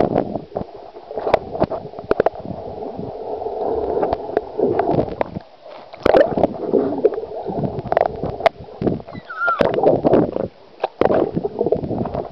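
Muffled gurgling and sloshing of pool water, heard from a camera held underwater, with scattered sharp clicks and knocks.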